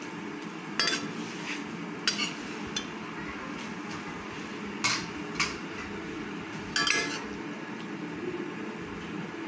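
Metal spatula stirring leafy greens in a steel wok, knocking and scraping against the pan in about five sharp clinks spread a second or more apart.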